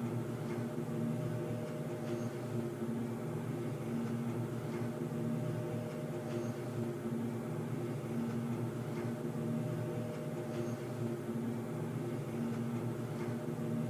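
Underground ambience: a steady low humming drone with a few steady tones, one of them swelling and fading every couple of seconds. Faint clicks and small high pings come every few seconds.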